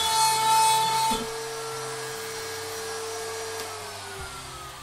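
CNC router spindle cutting into wood: the loud cutting noise stops about a second in as the power to the machine is cut, leaving the router's whine, which from about three and a half seconds slowly falls in pitch as the router spins down.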